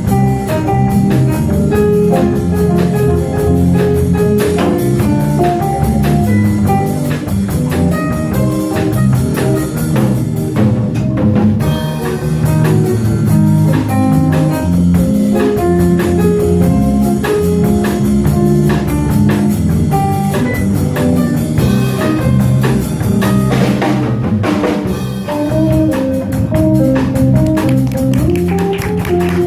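Small jazz combo of trumpet, tenor saxophone, trombone, piano, bass and drums playing a jazz standard, a single melodic line moving over walking bass, piano chords and a steady ride-cymbal drum beat.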